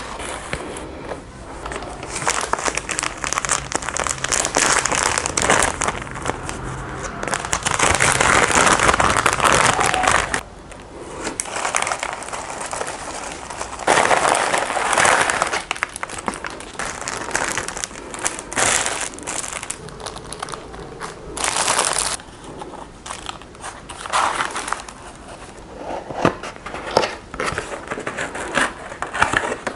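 Paper food wrappers and cardboard takeaway boxes crinkling and rustling as they are unwrapped and opened by hand, in loud spells with quieter handling between.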